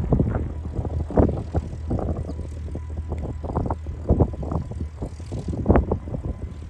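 Distant jet engine rumble of a four-engine Airbus A380 spooling up on its takeoff roll, a steady low drone under irregular gusty buffeting of wind on the microphone.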